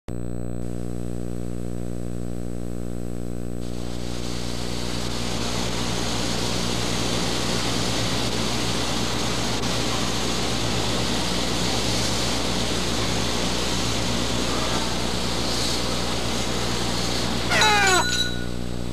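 Steady electrical hum under a steady hiss-like noise that comes in about four seconds in, with a brief rising wail near the end.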